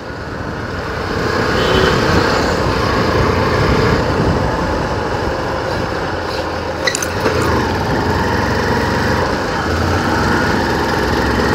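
Motorcycle running on the road, recorded from the rider's position: steady engine and road noise that builds over the first couple of seconds as the bike pulls away, then holds.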